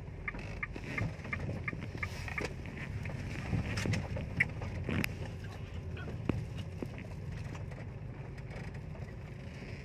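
Inside a car cabin on a damaged road: a steady low rumble of engine and tyres, with occasional sharp knocks and rattles as the car goes over the rough surface.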